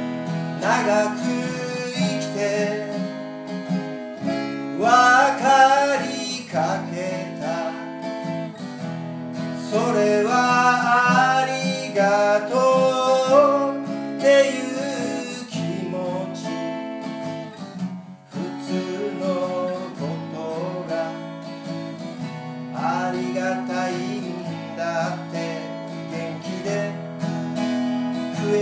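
Acoustic guitar strummed steadily, with wavering harmonica phrases from a neck rack coming in over it in several bursts.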